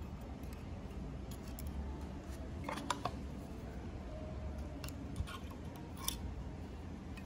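Metal tweezers clicking and tapping against the needle and thread-guide parts of a 5-thread overlock sewing machine while threading it: a cluster of small clicks about three seconds in, then single clicks near five and six seconds, over a low steady hum.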